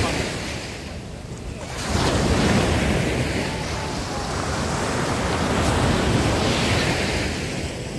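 Black Sea surf washing onto a sandy beach, easing about a second in and swelling again soon after, with wind buffeting the microphone.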